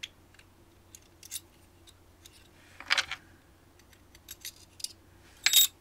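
Tweezers and a pick clicking and scraping on a thin metal RF shield can as it is pried off a circuit board, with a sharper click about 3 seconds in and a louder, ringing metallic clink near the end as the lid comes free.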